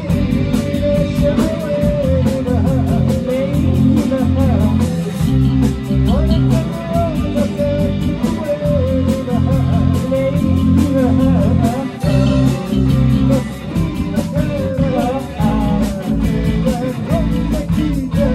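Rock band playing: electric guitar chords and a drum kit with fast, regular cymbal hits over a low bass line, with a bending melody line on top.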